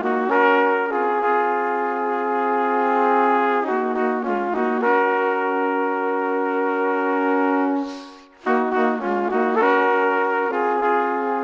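Background music of held chords on pitched instruments, breaking off briefly about eight seconds in and then resuming.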